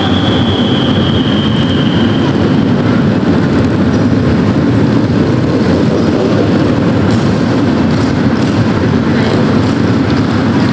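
Several Harley-Davidson police motorcycles' V-twin engines running together as the bikes ride in formation, a loud, steady low rumble. A thin high whine sounds over it for the first two seconds, falling slightly.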